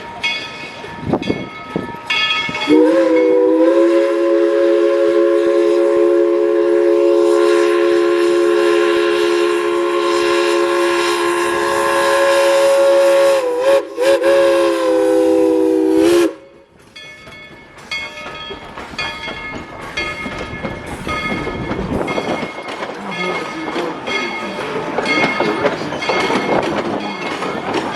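Steam locomotive's chime whistle blowing one long, loud chord of several notes for about thirteen seconds, sagging briefly just before it cuts off. Before and after it, the train rolls along the track with clicking and rattling.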